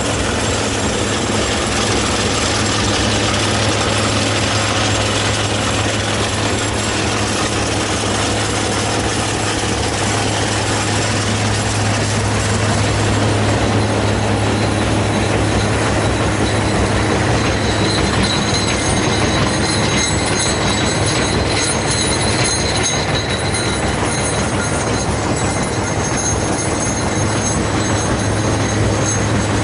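Metso Lokotrack LT105 tracked mobile jaw crusher running, its diesel engine and machinery giving a loud steady drone with a strong low hum. About two-thirds of the way through, a high metallic rattle and thin whine join in.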